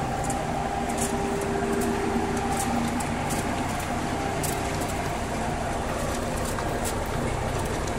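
Battery crushing and sorting plant running steadily: the drone of its motors and belt conveyor, with scattered sharp ticks.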